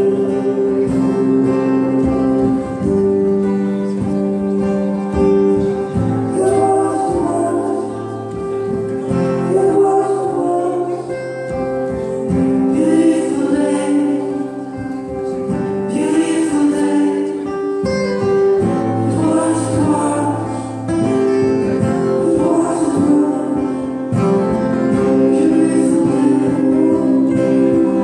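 Live acoustic music: two acoustic guitars strummed together with a man singing into a microphone.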